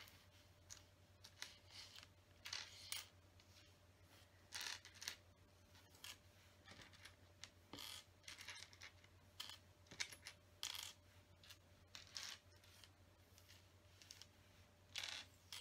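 Small plastic LEGO pieces clicking and clattering against each other and the tabletop as they are pushed about and sorted by hand, in short scattered bursts.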